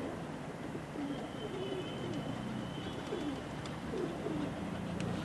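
Several domestic pigeons cooing: short, low coos repeating and overlapping throughout.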